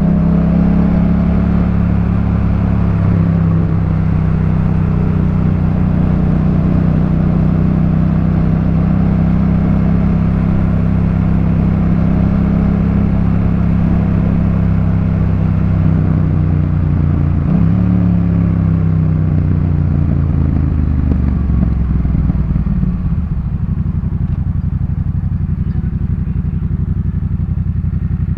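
Yamaha MT-07's 689 cc parallel-twin engine through a Jeskap K4 full exhaust, running at steady revs. About two-thirds of the way in there is a brief dip in revs, and near the end it drops to a lower, quieter steady note.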